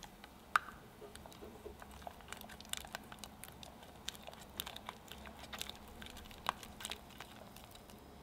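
Spatula stirring thick custard cream in a saucepan: sticky squelches and scrapes with many small irregular taps against the pot, the sharpest about half a second in. The custard has thickened on the heat.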